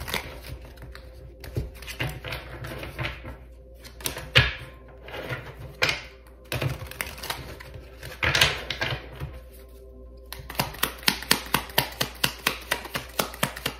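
A deck of cards being shuffled by hand: scattered swishes and soft slaps of cards sliding over each other, then from about ten seconds in a quick, even run of clicking card flicks, about five a second.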